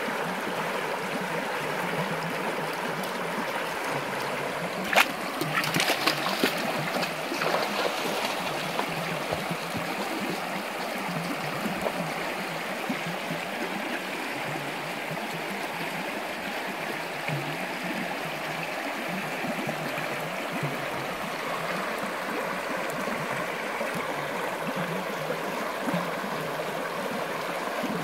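Shallow arroyo running steadily over its bed, a continuous rushing and trickling of water. About five to eight seconds in, a few brief sharp sounds stand out above the flow.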